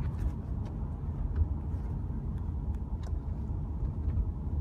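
Steady low rumble of a moving car, with a few faint ticks over it.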